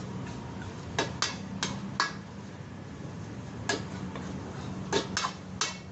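Metal ladle and spatula clanking and scraping against a steel wok while noodles are stir-fried: about eight sharp, ringing clanks at an uneven pace, over a steady low hum.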